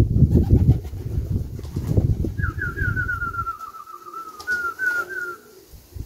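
Pigeons cooing at the loft over low buffeting noise for the first few seconds. From about two and a half seconds in, a bird gives a quick run of short, high whistled notes that fall slightly in pitch.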